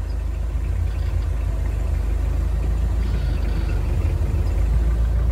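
Steady low rumble of a passenger van's engine and running gear, heard from inside the cabin.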